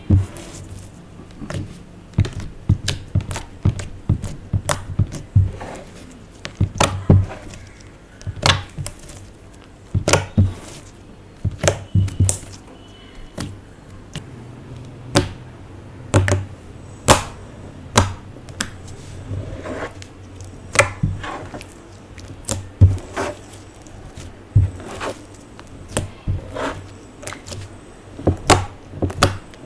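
Slime and makeup being worked by hand on a hard surface: irregular sharp clicks, taps and soft thunks, sometimes several in quick succession and sometimes a second or more apart.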